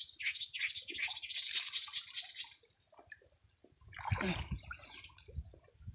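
Muddy water splashing and dripping in short irregular bursts as hands dig in a catfish hole, with a lull about halfway through.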